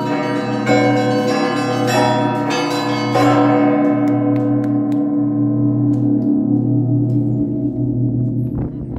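Orthodox church bells rung by a bell ringer: the last few strokes of a festive Easter peal, about three strikes in the first three seconds. After that the bells are left to ring out and slowly fade, the deep hum of the largest bell lasting longest.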